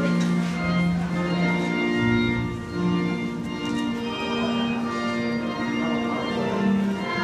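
Organ music: slow, held chords that change every second or two.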